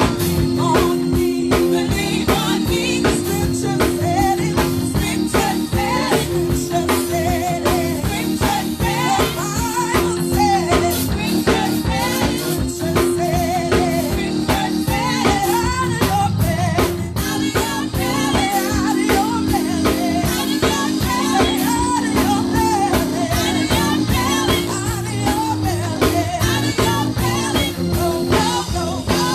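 Live gospel praise music: a singing voice over drum kit and sustained instrumental chords with a steady beat.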